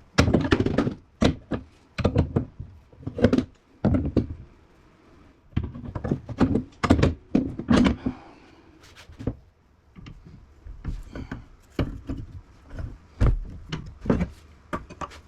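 Hammer-and-tool blows on a window air conditioner's electric motor being dismantled for scrap: an irregular string of sharp knocks and thunks with a couple of short pauses.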